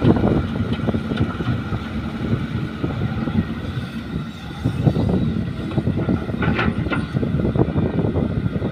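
Caterpillar E120B tracked hydraulic excavator's diesel engine running steadily under load as the machine swings and digs.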